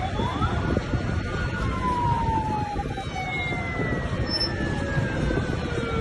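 A siren wailing, its pitch rising early and then falling slowly, over a steady low rush of outdoor noise.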